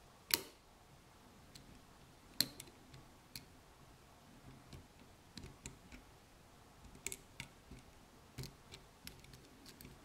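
Faint, scattered clicks of a steel lock pick working the pin stacks inside a DOM five-pin switch lock cylinder under tension. The two sharpest clicks come just after the start and about two and a half seconds in, with lighter ticks spread through the rest.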